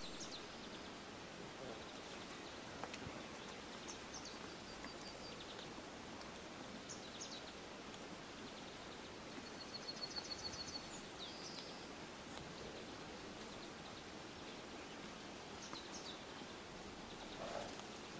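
Steady outdoor background noise with small birds chirping and giving short rapid trills now and then, the clearest trill about ten seconds in. A brief rustle near the end.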